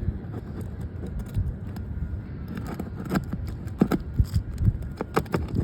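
Metal roofing pry tool working nails loose under an asphalt shingle: scraping and clicking, with a run of sharp knocks in the second half, over a steady low rumble.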